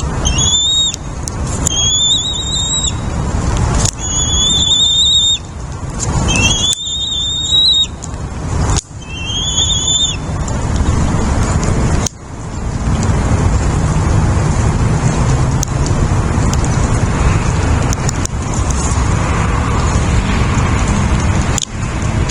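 A bird calling: about five high, drawn-out squealing calls, each about a second long, in the first ten seconds. After that comes a steady rushing noise with no calls.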